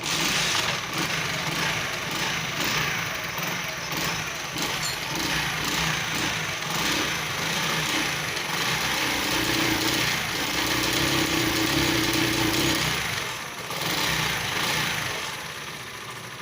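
Honda motorcycle engine starting and running, revved up in the second half, dropping back, blipped once more and settling to a quieter idle near the end. It runs after a timing adjustment to cure an engine noise, and is judged perfectly fine.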